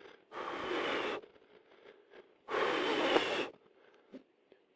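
A person blowing hard onto smouldering bark and dry grass to coax a campfire into flame: two long breaths, each about a second, about two seconds apart, with faint ticks between them.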